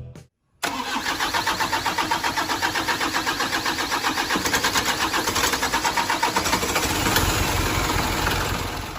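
Engine cranking on its starter motor in a hard start, an even rapid pulsing of about five beats a second that begins abruptly after a moment of silence. Near the end the pulsing blurs into a steadier sound.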